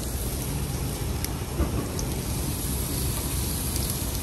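Zucchini slices sizzling on a hot electric grill: a steady hiss over a low rumble, with a couple of faint clicks.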